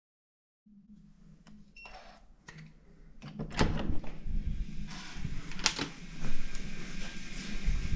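Hotel room door being unlocked and opened: faint clicks and a brief electronic-sounding tone, then louder clicks and latch snaps from the lock and lever handle as the wooden door swings open.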